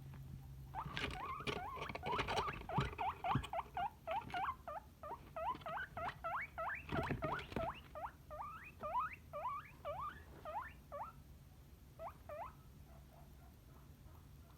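Guinea pig squeaking over and over, a fast run of short high squeaks at about two to three a second that thins out and stops near the end, with some rustling scrabbling in the first seconds and again midway.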